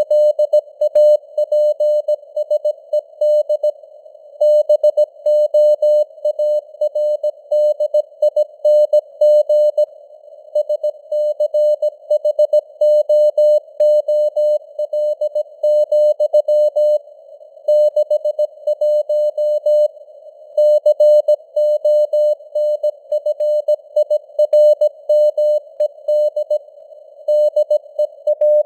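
Morse code (CW) sent at 17 words per minute as a single keyed tone, with short and long beeps grouped into characters and words. A faint hiss of simulated radio band noise sits around the tone and carries on through the gaps.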